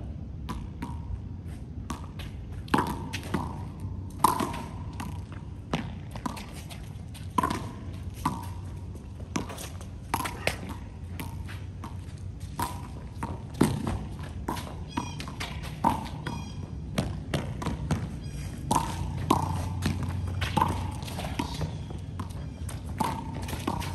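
A handball rally: a rubber ball struck by hand, smacking the concrete wall and bouncing on the court in irregular sharp hits, each with a short ringing ping, about one or two a second.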